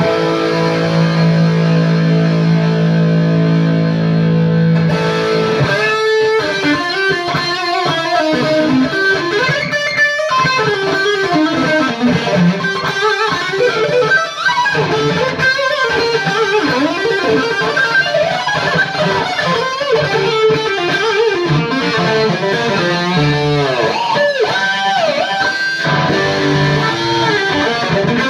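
Electric guitar played through a Bad Cat Siamese Drive overdrive pedal and a 3rd Power amp. A chord rings out for about five seconds, then fast single-note lead lines with string bends follow.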